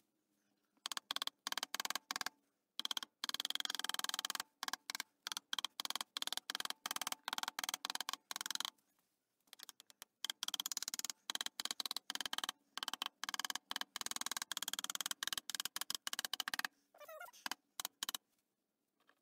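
Rapid runs of light taps on a lathe apron's metal parts, in bursts with short pauses, stopping a couple of seconds before the end: a tight shaft being tapped into position in the apron casting.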